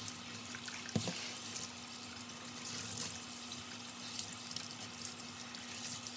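Kitchen tap running over boiled komatsuna greens held in a colander in a stainless steel sink, cooling them: a steady splashing hiss of water, with one small knock about a second in.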